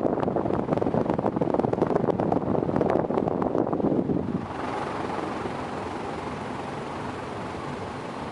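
Air thrown down by an Evergo Model E-2 ceiling fan running on high buffets the microphone in rough gusts. A little over four seconds in this gives way to a steadier, quieter rush of moving air.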